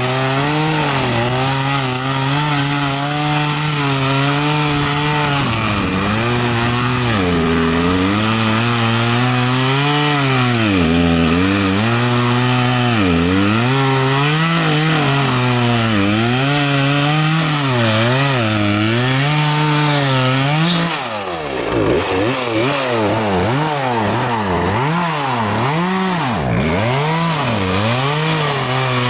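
Gasoline chainsaw running at high revs while cutting through a felled pine log; the engine pitch dips again and again as the chain loads up in the wood and climbs back as it frees. About two-thirds of the way through it drops briefly, then revs up and down quickly several times.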